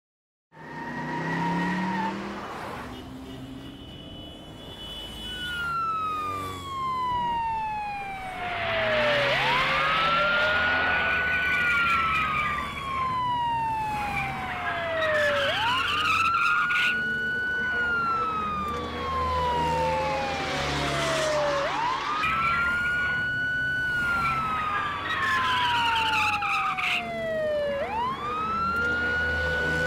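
Police car siren wailing, starting about five seconds in. Each cycle climbs quickly and then falls slowly, repeating about every six seconds.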